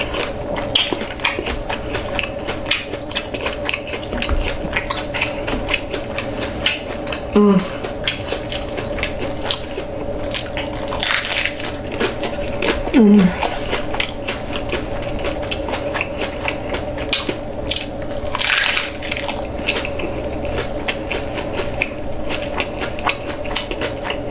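Close-miked eating of crunchy hard-shell tacos: a long run of crisp crackles from biting and chewing the shells, with two brief murmurs from the eater and a steady hum underneath.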